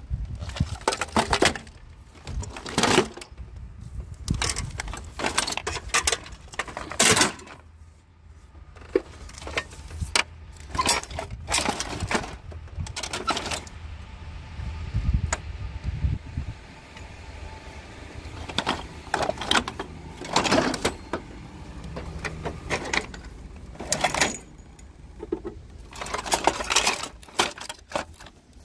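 Scrap metal and plastic appliance parts clanking and rattling as they are handled, in irregular sharp knocks, some in quick clusters.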